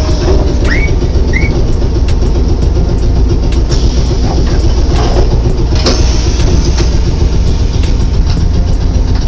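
Randen electric streetcar running along street track, heard from on board: a steady low rumble of motors and wheels on the rails. Two short rising chirps sound about a second in.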